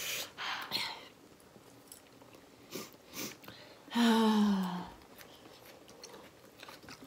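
Quiet eating sounds of two people at a bowl of very spicy instant hotpot, with a woman's short wordless moan falling in pitch about four seconds in, a reaction to the heat of the spice.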